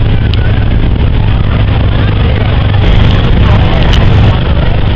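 A Supermarine Spitfire's V12 piston engine running with a steady low drone as the fighter flies overhead, with people talking faintly underneath.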